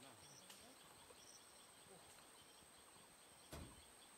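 Faint outdoor ambience: a steady high-pitched insect drone with a few faint chirps, and a single soft thump about three and a half seconds in.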